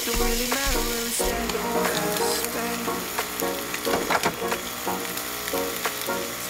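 Turkey bacon and an egg omelette sizzling in a frying pan, with background music playing over it.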